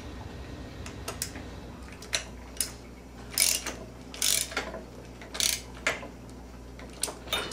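A hand wrench working the flywheel bolt of a small two-stroke engine: a series of short metallic clicks and scrapes, some in quick clusters, spaced irregularly about half a second to a second apart.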